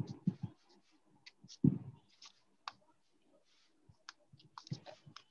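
Scattered light clicks at a computer, irregular and fairly quiet, with one louder thump about one and a half seconds in.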